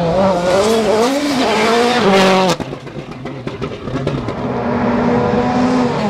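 World Rally cars' turbocharged 1.6-litre four-cylinder engines driven flat out on a gravel stage. The first revs up and falls back through quick gear changes and cuts off abruptly about two and a half seconds in. A second car's engine follows, climbing steadily in pitch.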